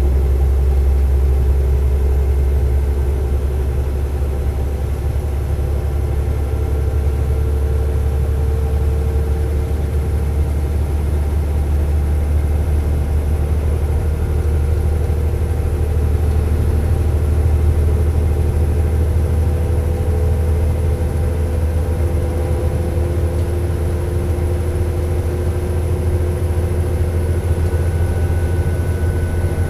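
Underfloor diesel engines of an Alstom LINT 41 H diesel multiple unit, heard from inside the passenger compartment as a steady deep drone with a few faint higher steady tones over it.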